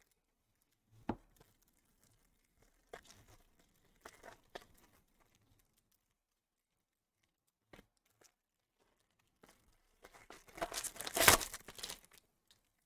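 Light handling clicks, then about ten seconds in a loud stretch of tearing and crinkling, about two seconds long, as the wrapping on a box of trading cards is ripped open.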